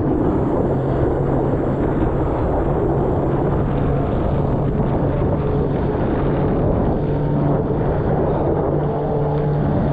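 Steady rushing noise of a boat under way, with wind on the microphone and low held tones underneath.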